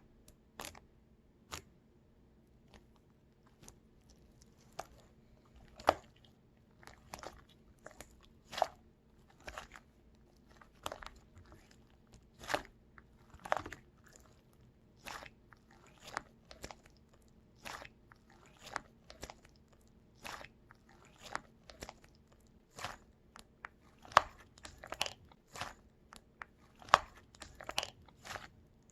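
Crunchy food being bitten and chewed: sharp, irregular crunches, roughly one or two a second.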